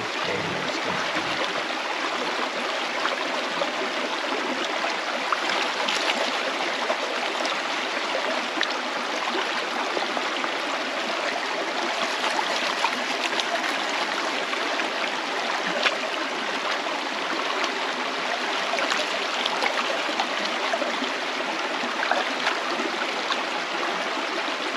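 Shallow, rocky river running steadily, a continuous rush of water over stones, with small clicks and splashes now and then from a gold pan being swirled in the current.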